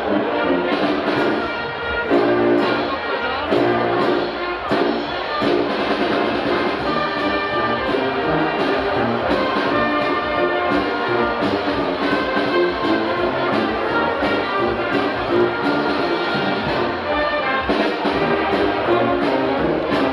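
Wind band of clarinets, brass and tubas playing a tune with a steady beat.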